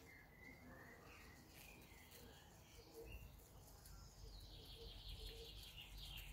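Faint birdsong: short chirps and warbles in the first couple of seconds, then a thin, higher trill from about four seconds in, over a low rumble.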